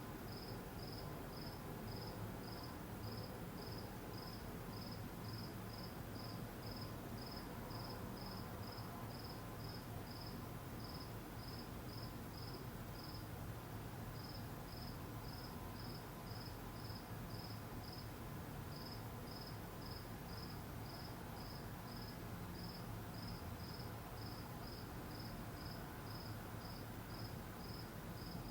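Insect chirping: a short, high chirp repeated evenly about two to three times a second, with a couple of brief pauses, over a steady low rumble.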